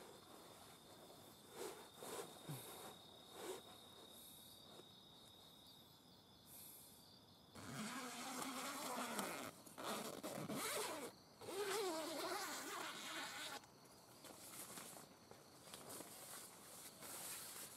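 Faint steady insect trill, a thin high note with a fast pulsing pattern. About eight seconds in it gives way abruptly to louder, irregular rustling and shuffling of a person moving inside a nylon tent.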